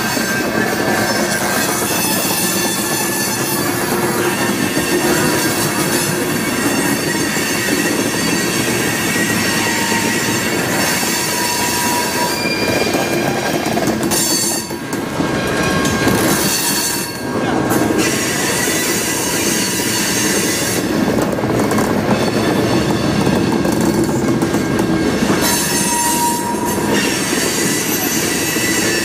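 Freight cars rolling past on steel wheels: a steady, dense rumble of wheels on rail, with thin high-pitched wheel squeals that come and go. The cars are centerbeam flatcars loaded with lumber.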